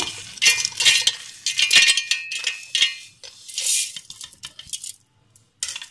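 Cashews, almonds and salted dal sliding off a ceramic plate into a steel mixer-grinder jar, rattling against the steel in several clattering bursts, with a short pause near the end.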